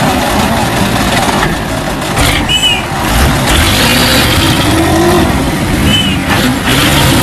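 Heavy diesel truck engines revving hard under load as a mud-stuck Mitsubishi Fuso truck is towed by a trailer truck, loud throughout with the pitch rising near the middle. Two short high chirps cut through, about two and a half seconds in and again about six seconds in.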